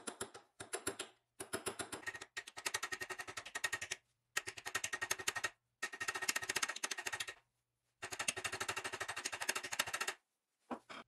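Small hammer tapping rapidly on the end of a brass rod stood on a steel vise anvil, metal on metal, peening the end over into a flared head. Quick light blows, several a second, come in runs of one to two seconds with short pauses.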